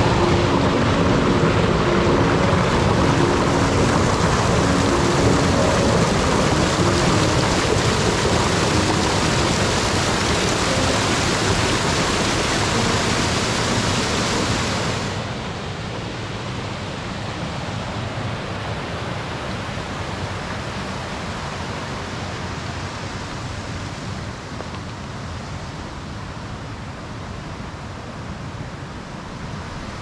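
Rushing water of a small fast-flowing river, a steady dense hiss. About halfway through it drops a step quieter and duller.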